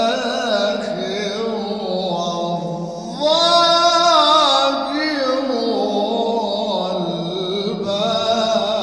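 Unaccompanied male voice chanting an Islamic tawshih (dawn devotional hymn), in long ornamented phrases with vibrato; a louder, higher held phrase comes in about three seconds in.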